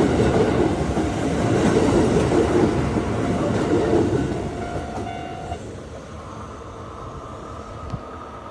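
A Kintetsu electric train passing over a level crossing, its wheels rumbling on the rails. The rumble is loud for the first few seconds, then fades away from about the middle as the train moves off.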